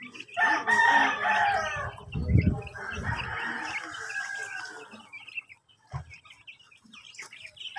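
A rooster crowing: two long drawn-out calls, the second slowly falling in pitch, with a low rumble about two seconds in.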